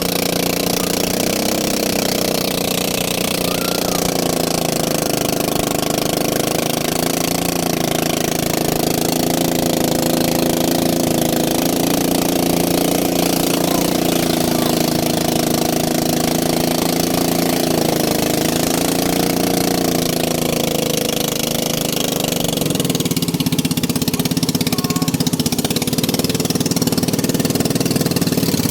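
A motor vehicle's engine running steadily, its pitch wavering a little as the speed changes. About three-quarters of the way through, its higher tones drop away and the sound thins.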